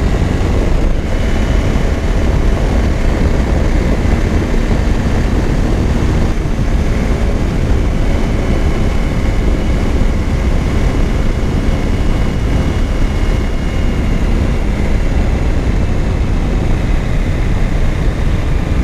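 Suzuki V-Strom 1000 V-twin engine running steadily at cruising speed, mixed with heavy, even wind rush on the microphone.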